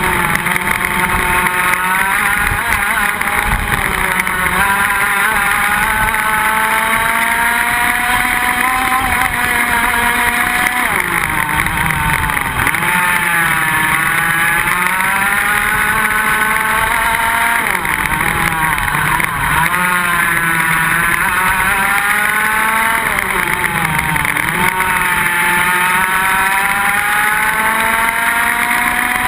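Iame X30 125cc two-stroke kart engine heard onboard at racing speed, its revs climbing steadily on the straights and falling sharply into the corners several times, with a rushing noise underneath.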